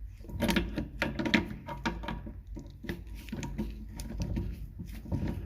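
Grips working on the nut of a flexi hose at a toilet cistern inlet to undo it: a run of small, irregular metal clicks and scrapes.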